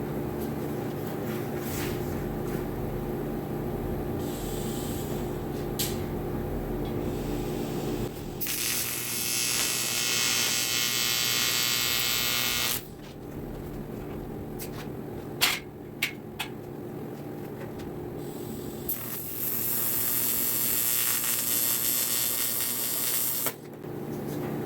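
TIG welding arc hissing and buzzing in two runs of about four seconds each, with the welding machine humming steadily around them. A few sharp clicks fall between the two runs.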